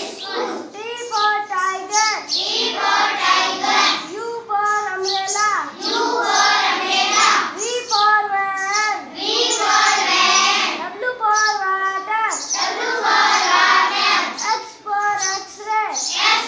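A child's voice singing an alphabet rhyme in a sing-song, phrase after phrase.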